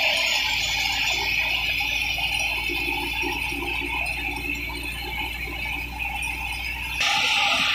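Tractor-driven wheat thresher running while threshing, a steady dense whirring of its drum, fan and belt drive. The noise gets abruptly louder about seven seconds in.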